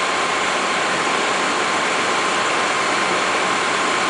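Exhaust fans running steadily, a constant rushing noise with a faint steady whine.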